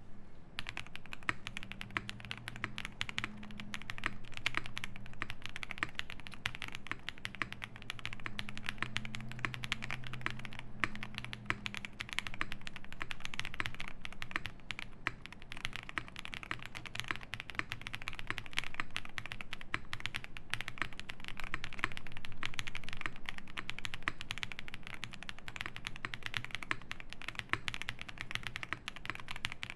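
Steady, fast typing on a Space 80 mechanical keyboard with lubed Epsilon switches, an FR4 plate and GMK Beta keycaps: a dense, continuous run of key clacks with no pauses.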